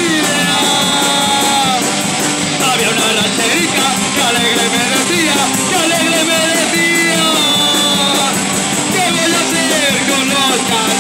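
Rock band playing live: drums, guitar and a singer's voice.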